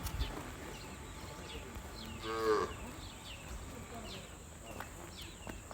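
A single short moo from cattle, lasting about half a second and falling slightly in pitch, a little past two seconds in.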